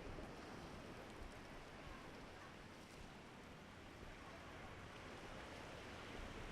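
Faint, steady outdoor background noise with no distinct events.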